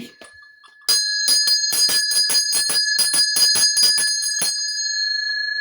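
Handbell pitched A, shaken so its clapper strikes about four or five times a second for some three and a half seconds. Near the end it is left ringing on one steady high note.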